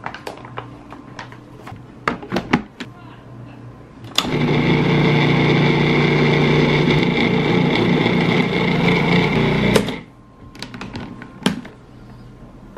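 Food processor motor running steadily for about six seconds as it blends a thick vegan chocolate truffle mixture, starting and stopping abruptly. Before and after it come a few clicks and knocks as the processor lid is fitted and taken off.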